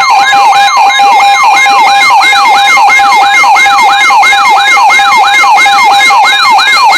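Weather alert radio's electronic siren alarm yelping in fast repeating sweeps, about three a second, over steady tones. It sounds as a new NOAA Weather Radio warning comes in.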